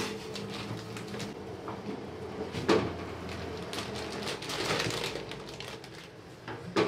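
Water boiling with noodles in a stainless steel pot on a gas burner, a steady bubbling hiss that swells as the pot foams up. A metal spoon knocks sharply against the pot twice, a little before halfway and at the very end.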